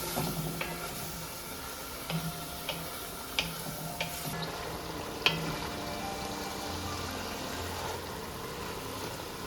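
Browned ground beef and pork sizzling in a pan while added white wine cooks off, with a spoon stirring and clicking against the pan about half a dozen times.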